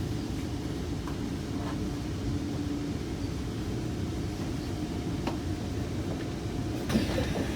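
Kawasaki C151 electric multiple-unit train running, a steady low rumble of wheels on rail, with a few light clicks and a sharper knock near the end.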